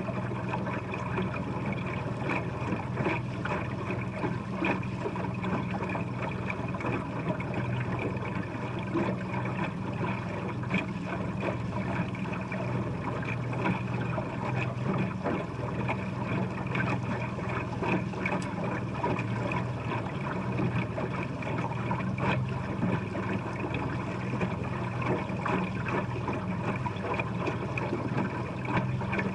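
Fishing boat's motor running steadily with the boat under way, a constant low hum under a rushing, crackly wash of water and air.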